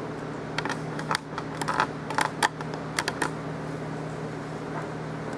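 Irregular clicking and tapping on a computer keyboard and mouse for about three seconds, then stopping, over a steady low hum.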